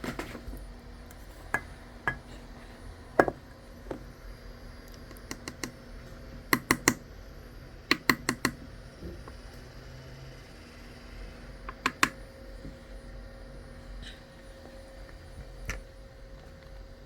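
Scattered sharp clicks and taps over a low steady hum, some coming in quick runs of three or four.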